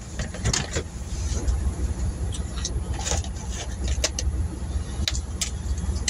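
Steady low rumble of a vehicle idling, heard from inside its cab, with a few scattered sharp clicks.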